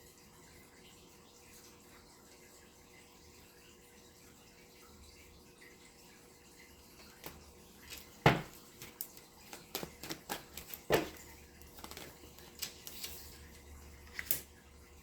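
Tarot cards being handled: an irregular run of sharp taps and clicks beginning about halfway through, the loudest a little after eight seconds in.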